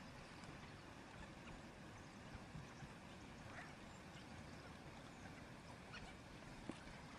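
Near silence: a faint, steady outdoor background hiss and rumble, with a few brief, faint chirps.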